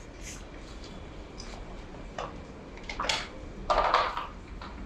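A few short clatters and a scrape as motorcycle parts are handled, the loudest lasting about half a second near the end.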